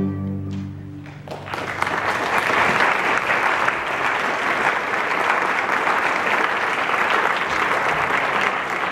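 The last chord of a string orchestra rings and fades away, then about a second and a half in an audience breaks into steady applause.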